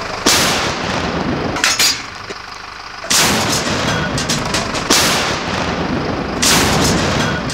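M60 tank's main gun firing artillery rounds for avalanche control: four sudden blasts, each followed by a long fading echo.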